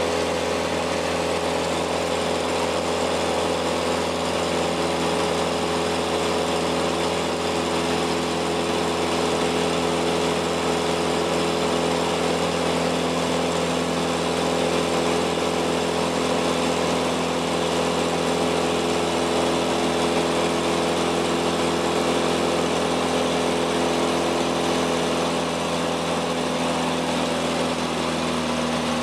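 Steady drone of a Cessna light aircraft's piston engine and propeller heard inside the cabin, over a constant hiss of airflow; the engine note drops slightly near the end.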